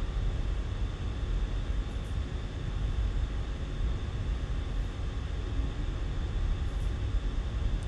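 Steady background noise, a low rumble with an even hiss over it, with no distinct events.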